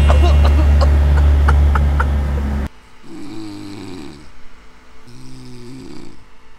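A loud, steady low drone with a few swishes and clicks cuts off suddenly nearly three seconds in. Then a person snores twice, each snore lasting about a second.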